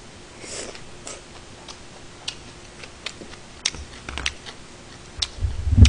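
Eating sounds with scattered small clicks of wooden chopsticks against a paper food tray, and a loud low thump near the end.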